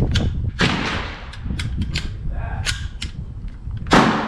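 .22LR shots fired from an AR-15 pistol with a CMMG .22LR conversion kit: a few sharp, unevenly spaced cracks with fainter clicks between them, the loudest shot near the end.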